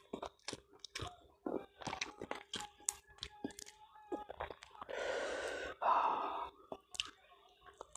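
Close-miked eating sounds: wet chewing and lip-smacking clicks as food is eaten by hand. About five seconds in comes a long breathy exhale, then a shorter one right after it.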